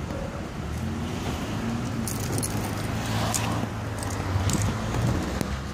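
Metal jangling from an American Staffordshire terrier's collar buckle and leash clip as the dog worries and tears at a mattress, with a few sharp clinks and rattles in the middle, over a steady low hum of street traffic.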